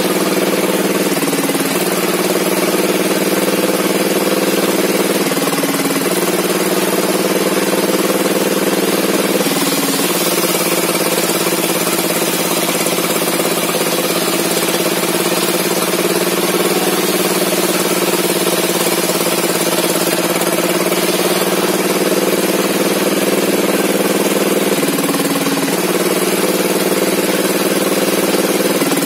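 A sawmill engine running steadily, its pitch shifting briefly a few times as the load changes.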